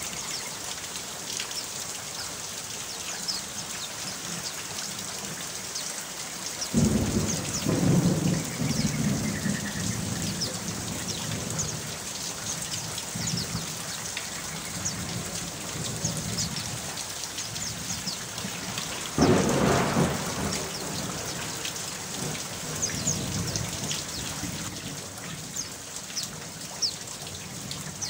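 Steady rain with many fine drop sounds, and two rolls of thunder rumbling for several seconds each: one about seven seconds in, and one with a sharper start about nineteen seconds in.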